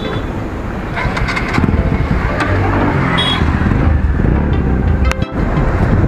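Motorcycle engine running with road noise, a steady low rumble that gets a little louder about a second and a half in.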